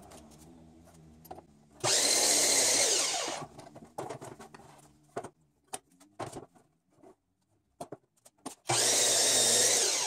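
Sliding compound miter saw cutting through a 2x4 twice, each cut lasting about a second and a half, with knocks and clatter from handling the wood between the cuts.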